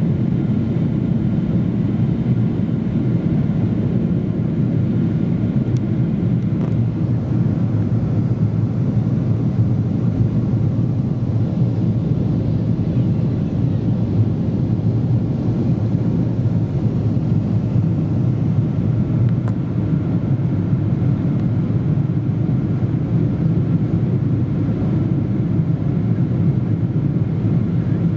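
Steady engine and airflow noise inside the cabin of a Boeing 777-200ER with Rolls-Royce Trent 800 engines: an even, low rumble with a faint whine above it that does not change.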